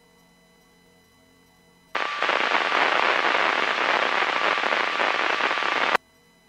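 A loud burst of crackling radio static that cuts in suddenly, runs about four seconds and cuts off sharply, as when a radio channel is keyed with no voice on it.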